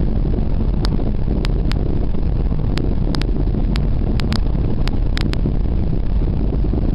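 Steady rumble of a car driving on a concrete road, heard from inside the cabin: road and wind noise with irregular sharp ticks.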